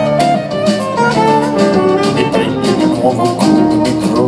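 Live band playing an instrumental passage of a pop song, with no singing: saxophone, double bass, guitar, drums and keyboards, many notes sounding together.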